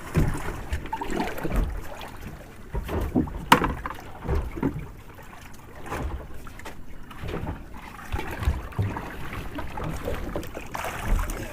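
Small fishing boat at sea: water against the hull and wind on the microphone, with irregular knocks on deck, the sharpest about three and a half seconds in.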